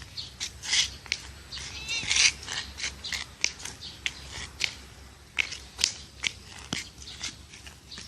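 Domestic cat: one short, high meow about two seconds in, amid a run of short, irregular clicks and rustles.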